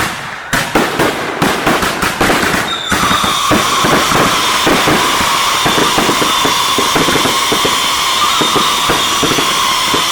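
Fireworks going off: a rapid, continuous crackle of firecracker bangs, joined about three seconds in by a long whistle that slowly falls in pitch.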